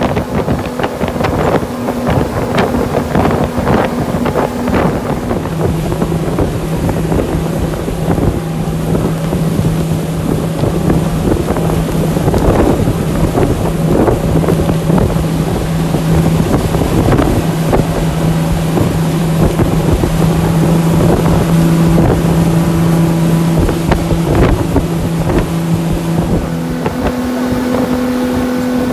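Mercury outboard motors running at high speed on a fishing boat, a steady drone whose pitch drops about five seconds in and climbs again near the end, with wind buffeting the microphone and the hull knocking on the waves.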